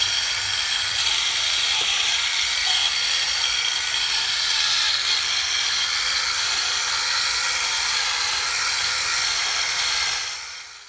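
A steady mechanical whirr with a fine rattling texture, mostly high-pitched, fading in at the start and out near the end.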